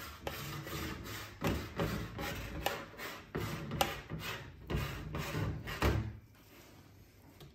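Metal spoon scraping and tapping against a ceramic plate as it spreads thick mayonnaise into a swirled pattern: a run of light knocks and scrapes, two or three a second, that stops about six seconds in.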